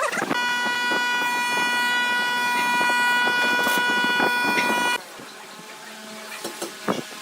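A steady, high-pitched machine whine with many overtones, most likely a power tool motor running at constant speed, that stops abruptly about five seconds in; light knocks and taps continue around it.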